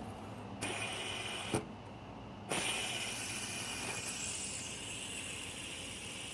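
A few handling clicks, then about two and a half seconds in a fidget spinner is flicked into a spin and its bearing whirs steadily, slowly fading.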